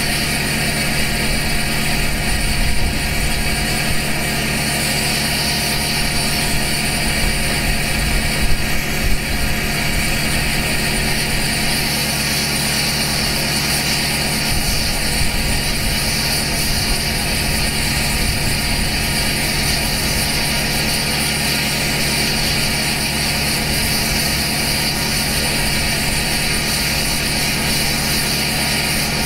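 A 2012 LML Duramax 6.6-litre V8 turbodiesel idling steadily after a cold start, running through a 5-inch straight pipe with no muffler, out an 8-inch axle-dump tip.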